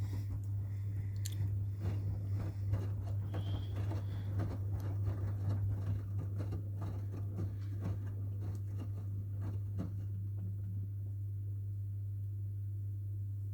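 AEG and Miele washing machines running a wash: a steady low hum with irregular clicks and rustles over it that die away about ten seconds in, leaving only the hum.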